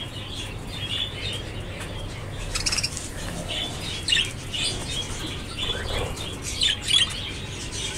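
A flock of budgerigars chattering in an aviary: many short chirps and squawks overlapping throughout.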